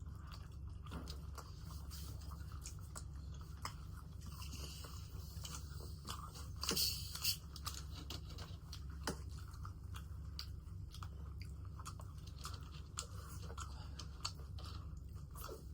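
Close-up eating sounds: chewing with small crunches and wet mouth clicks, a brighter crunch about five seconds in and again about seven seconds in, over a steady low hum.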